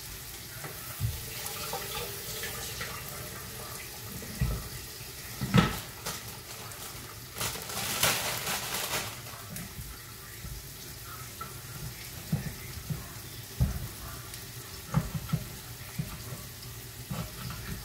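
Kitchen sink and counter work: a tap runs briefly about eight seconds in, among a few knocks of things being handled. Near the end a knife taps through vegetables. A faint steady sizzle from frying food carries on underneath.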